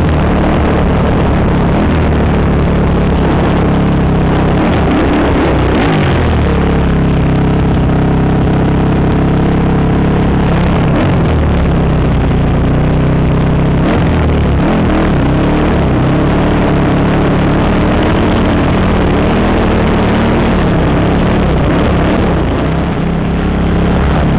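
Honda TRX450R quad's single-cylinder four-stroke engine running loud, revving up and down with the throttle several times, heard from the rider's helmet camera.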